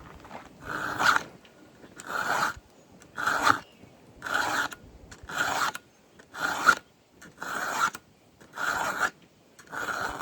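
7/32-inch round file drawn by hand through a cutter of a Stihl MS 500i chainsaw chain, sharpening the gullet: about nine steady rasping push strokes, roughly one a second.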